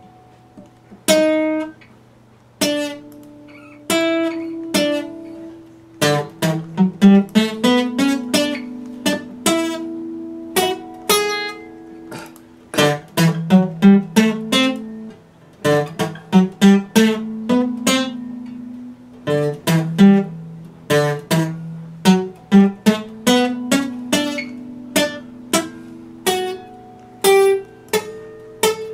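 Epiphone acoustic guitar played solo, picked note by note. Sparse single notes ring out for the first few seconds, then a busier picking pattern runs over sustained bass notes from about six seconds in.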